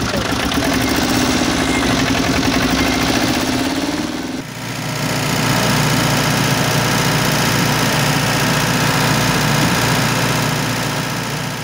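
Truck engine sound running steadily with a wavering note. About four seconds in, it cuts abruptly to a lower, steadier engine note.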